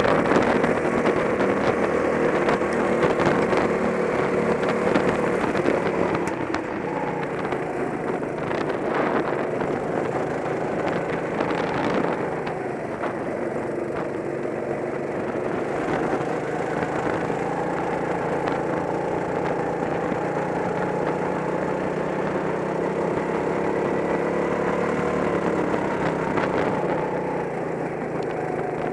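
Go-kart engine heard from on board the kart, running hard at racing speed. Its pitch falls as the throttle is lifted for corners, about six and twelve seconds in, and climbs again under acceleration.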